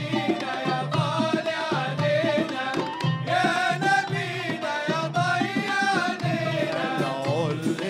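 Live Middle Eastern devotional ensemble music. Frame drums and a hand drum beat a steady rhythm under a wavering ney (end-blown reed flute) melody and male voices singing.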